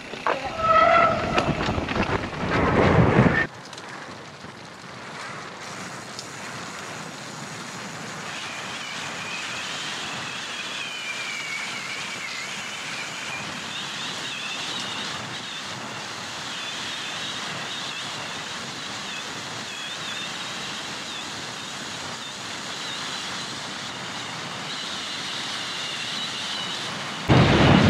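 Mountain bike rolling fast down a gravel road: a steady rush of tyres on gravel and wind on the microphone. It is louder for the first three seconds or so, then drops suddenly. A high whine wavers in pitch over the rush.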